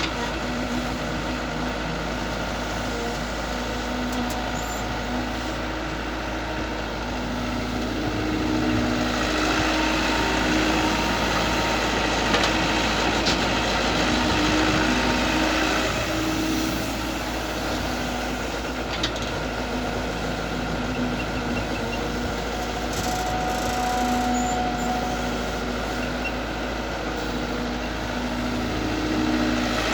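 Mini excavator engine running steadily, getting louder for several seconds about a third of the way in.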